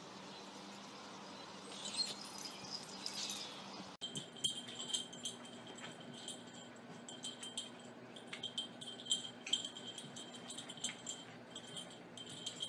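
A small bell jingling in quick, irregular shakes as two cats wrestle and roll on a carpet, starting about four seconds in; before that only a faint low hum.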